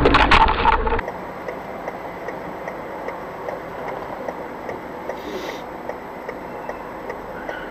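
Even, regular ticking over a quieter steady hum. It follows a louder, noisy stretch that breaks off abruptly about a second in.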